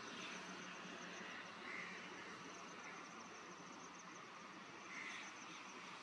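Faint outdoor ambience of insects trilling steadily in a rapid high pulse, with two short chirps, one about two seconds in and one near the end.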